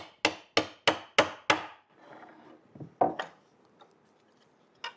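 Mallet tapping 3D-printed plastic parts together on a wooden workbench: six quick taps about a third of a second apart, then faint handling and a single knock about three seconds in.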